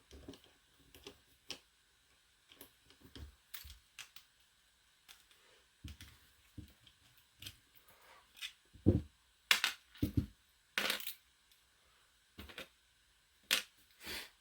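Small clicks, taps and knocks of tools and lock parts being handled as a Master Lock M530 padlock is taken apart, scattered and irregular, with a few louder knocks from about nine to eleven seconds in and again near the end.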